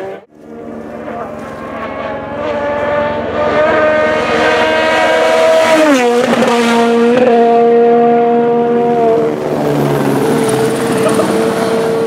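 Rally car approaching at speed, its engine note climbing steadily, then passing close by with a sharp drop in pitch about six seconds in and running on at a steady lower note as it goes away.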